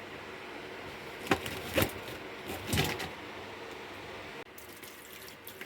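Tap water running steadily into a container of frozen lobsters to thaw them, with a few short knocks or splashes about a second and a half and nearly three seconds in. The sound drops off suddenly near the end.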